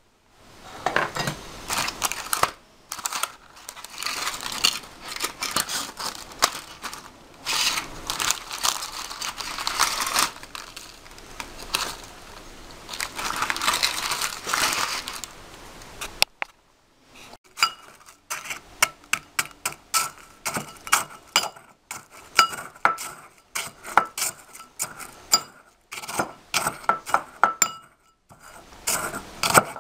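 Dried meringue being broken apart on crinkling paper, a dense stretch of crunching and paper rustling. About sixteen seconds in, after a short break, a pestle crushes the meringue in a ceramic bowl with sharp, ringing clinks a few times a second.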